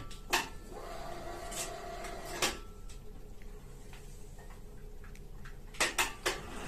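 Ceiling track hoist being handled by hand: a few sharp clicks and knocks from its hanger bar and coiled handset cord, with a quick cluster of them near the end.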